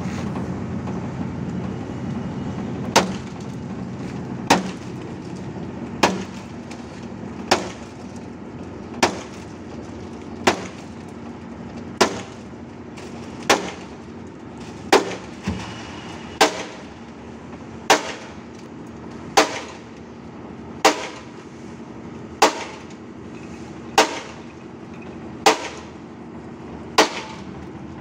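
A concrete mixer's hoist engine running steadily, with sharp metallic clangs about every one and a half seconds, some seventeen in a row, from the steel lift skip being struck while it empties wet concrete.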